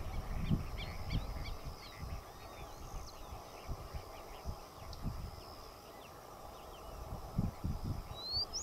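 Birds chirping and calling over an open field, with a faint steady high buzz behind them. Wind buffets the microphone at the start and again near the end.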